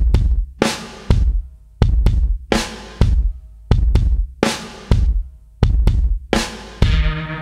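Background music: heavy drum hits with a deep bass boom, each ringing out and fading, about one every half-second to second. Near the end, steady held chords come in under the drums.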